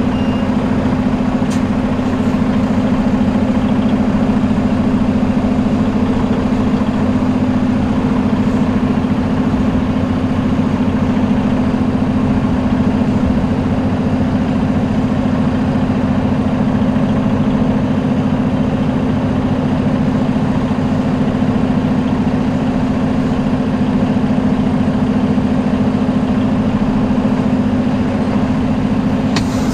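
Steady drone of a Freightliner Cascadia semi truck's diesel engine, heard from inside the cab.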